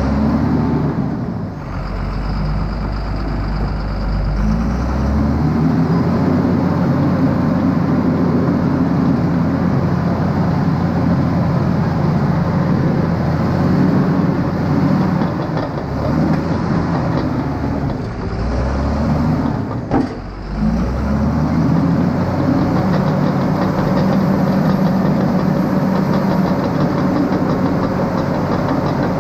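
Excavator's diesel engine running hard under load, heard from inside the cab, as the machine pushes a log truck up a soft grade. The engine sound eases briefly about a second and a half in and again around eighteen to twenty seconds in, with a sharp click near twenty seconds.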